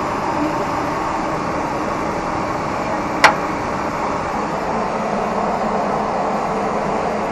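Steady cabin noise of a Boeing airliner in flight, the engine and airflow sound heard inside its lavatory. A single sharp click about three seconds in.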